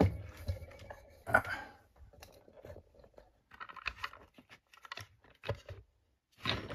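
Plastic parts of a lock-picking vise being handled and fitted together on a rubber bench mat: scattered clicks, knocks and rubbing, with the loudest knock about a second and a half in.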